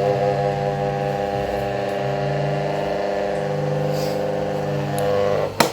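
Small electric fan motor spinning a propeller, giving a steady, loud hum with a buzzing edge, then a sharp click near the end.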